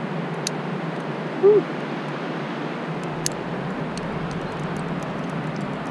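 Steady wind noise on the microphone, with two sharp metallic clicks of carabiners and climbing gear being handled, and a brief short vocal sound from a climber about a second and a half in.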